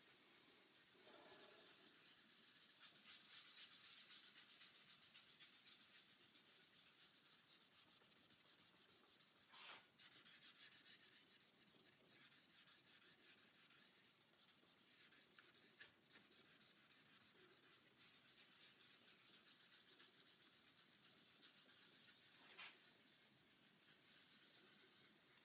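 Faint, steady hiss of wet sandpaper rubbed back and forth over a guitar body's waterborne lacquer finish (Crystalac Brite-Tone), with two light clicks, one about ten seconds in and one near the end.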